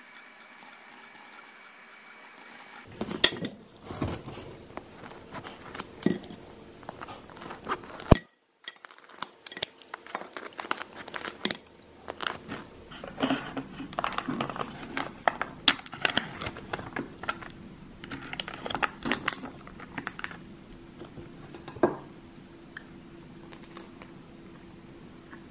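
A knife cutting through a crusty pretzel on a board: crackling crunches of the crust and knocks of the blade on the board, with a few clinks of dishes. It starts about three seconds in and dies down near the end.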